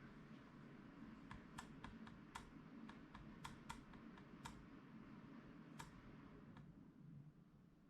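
About a dozen faint, irregular clicks of computer keys being pressed, over a low steady hum.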